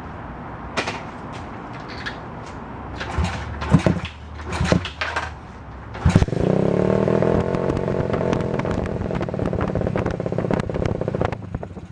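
Pit bike engine being started: a few loud cranking strokes, then it catches about six seconds in and runs steadily before cutting out near the end.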